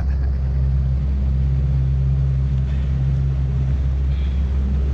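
A small motorboat's engine running steadily at low speed, a constant low hum.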